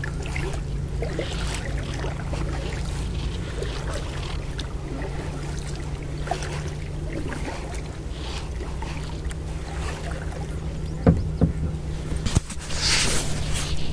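Kayak paddling: water dripping and splashing off the paddle, over a steady low rumble. About eleven seconds in come a few sharp knocks, then a louder splash near the end.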